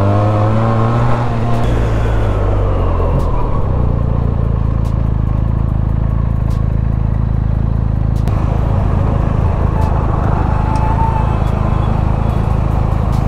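Benelli TNT 300's parallel-twin engine winding down in pitch over the first couple of seconds as the bike slows, then idling steadily.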